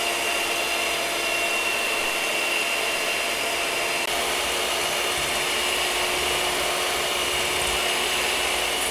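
Handheld electric mixer running at a steady speed, a constant motor whine, its beaters whisking egg whites in a glass bowl. The whites are being beaten to a foam, the first stage of a meringue before any sugar goes in.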